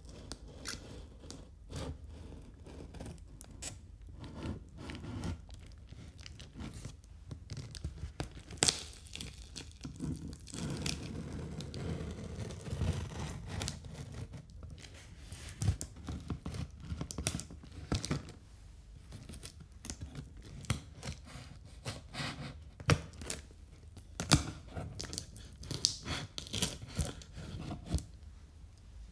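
Scissor point dragged along clear plastic packing tape on a cardboard box, slitting the tape open: irregular scraping and tearing with many sharp taps and clicks on the cardboard.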